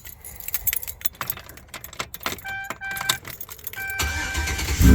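Car keys jangle and click at the ignition, a dashboard warning chime beeps, then the starter cranks about four seconds in and the engine catches just before the end and settles into a loud run, exhaust routed through the electric exhaust cutout in its closed position.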